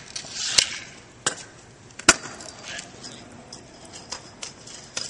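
Sharp clacks of a kick scooter and a skateboard striking concrete: one about half a second in, another just past a second, the loudest about two seconds in, then lighter knocks.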